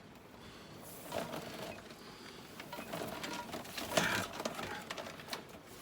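Plastic-sheathed Ethernet cable being pulled out of a tangled pile and handled: faint, uneven rustling and small clicks, loudest about a second in and again about four seconds in.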